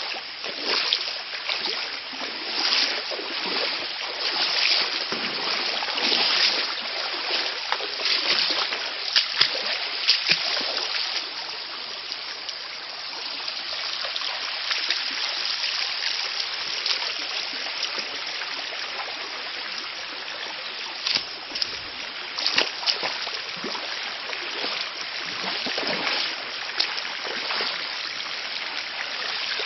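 Shallow rocky jungle stream running steadily, with scattered sharp splashes, most frequent in the first ten seconds or so and again near the end.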